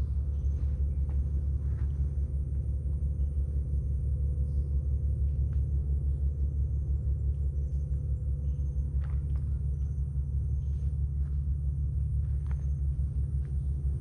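Steady low rumble, with a few faint scattered ticks above it.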